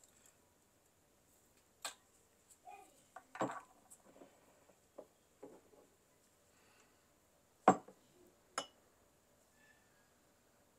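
Scattered clinks and knocks of a glass perfume bottle and glass beakers being handled and set down on a countertop, with quiet between them; the loudest knock comes about three-quarters of the way through.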